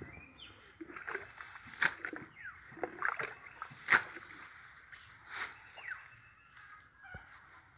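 A plastic jug scooping and tipping out shallow muddy water again and again, bailing a pool dry, with several sharp splashes about a second or two apart.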